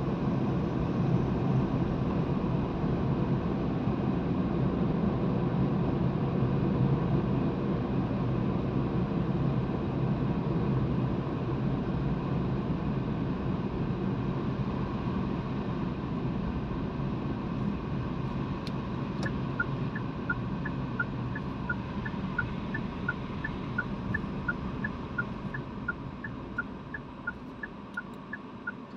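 Car cabin noise of tyres and engine at road speed, easing off as the car slows near the end. From about two-thirds in, a turn-signal indicator ticks steadily, alternating between two clicks about twice a second.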